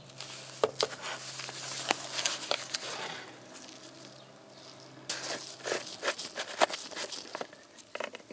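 Gloved hands handling a plastic 5-litre motor oil jug and unscrewing its cap: crinkling, rustling handling noise with sharp clicks, in two spells. A faint steady hum underneath stops about six seconds in.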